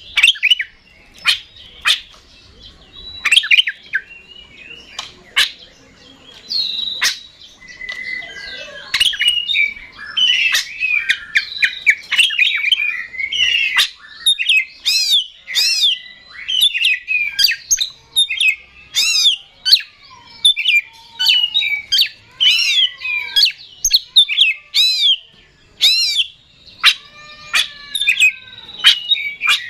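Oriental magpie-robin (kacer) singing non-stop: a fast, varied song of whistles, chirps and sharp clicks. In the second half it repeats a loud arching note over and over, some with lower notes beneath.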